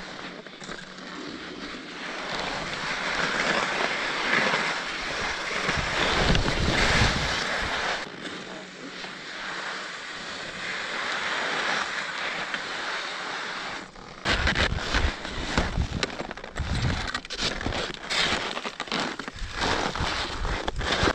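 Skis scraping and hissing over packed, tracked-out snow on a steep descent. From about two-thirds of the way through, wind buffets the microphone in rapid gusts.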